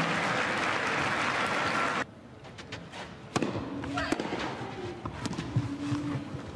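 Crowd applause for about two seconds, cut off suddenly, then a tennis rally: sharp hits of racket strings on the ball a second or so apart, the loudest just over a second after the cut, with lighter ball bounces on the clay between them.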